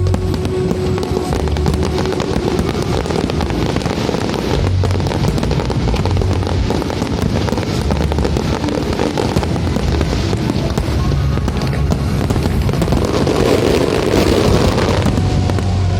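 Aerial fireworks going off in a dense stream of crackles and bangs, thickest near the end, with music playing underneath.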